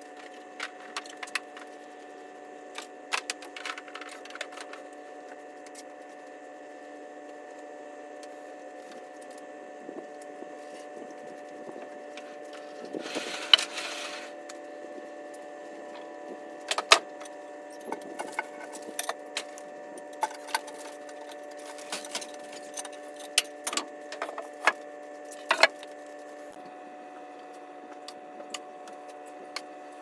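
A Norwood LumberPro portable band sawmill's engine running steadily, with sharp clicks and knocks scattered throughout and a short rush of noise about halfway through.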